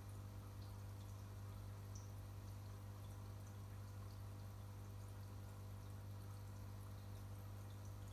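Aquarium equipment running: a steady low hum from the air pump, with faint scattered drips and bubble pops from the tank's water.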